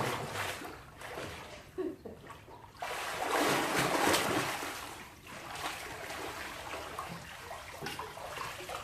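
Swimming-pool water splashing and sloshing, with a louder spell of splashing about three seconds in that lasts around two seconds.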